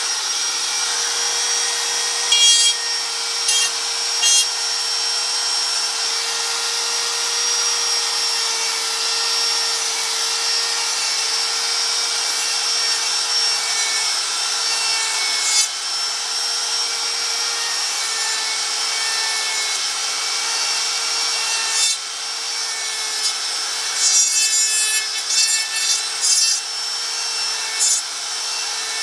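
A small electric power tool runs at a steady pitch while sanding the wood of a chainsaw-carved log. Its rubbing turns louder and rougher in short spells, a few seconds in and again several times near the end, as it presses harder into the wood.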